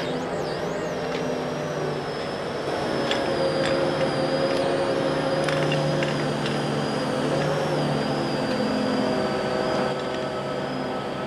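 Mobile crane's diesel engine running steadily with a thin high whine from the hoist drive as the hook block and chain slings are lowered, with a few light chain clinks.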